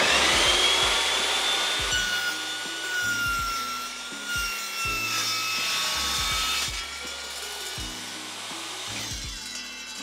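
Einhell TP-CC 10 T table saw running at speed as it finishes spinning up, its carbide-tipped blade ripping a thin strip off a wooden board. The motor's whine sags slightly in pitch under the cut, and the cutting noise stops about two-thirds of the way through while the saw keeps running.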